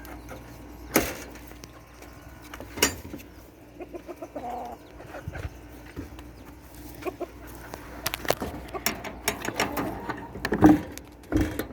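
Chickens clucking, mixed with scattered knocks and clatters, the loudest near the end.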